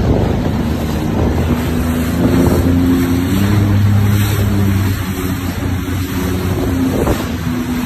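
Sea-Doo GTX Limited 300 jet ski's supercharged three-cylinder Rotax engine running steadily, its note stepping up and down a few times as the throttle changes, over water splashing and wind noise on the microphone.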